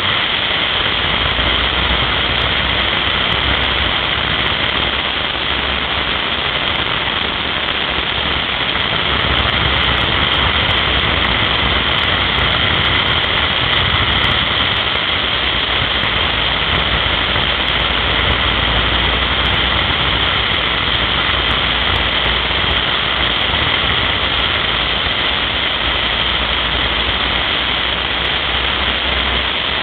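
Onboard sound of a motorcycle ridden at speed: the engine running under a steady rush of wind and road noise on the camera, even in level throughout.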